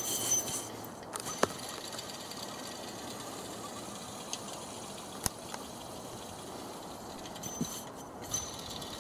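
The removed alternator from a 1999 Subaru Forester, its pulley spun by hand: a steady dry whirr from the turning rotor and bearings that sounds a little crispy, the rough feel of a failed alternator. A couple of sharp clicks from handling the unit.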